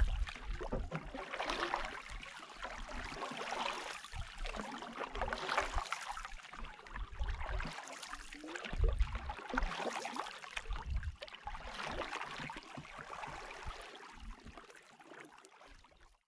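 Canoe paddles dipping and pulling through calm water, splashing and gurgling in a slow rhythm of strokes roughly every two seconds. The sound fades out near the end.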